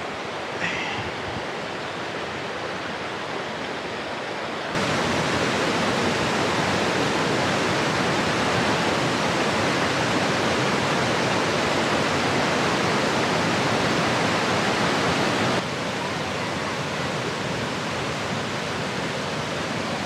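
Rushing water of a small rocky forest waterfall and its stream, running high with rainy-season water: a steady rush that gets abruptly louder about five seconds in and drops back somewhat near sixteen seconds.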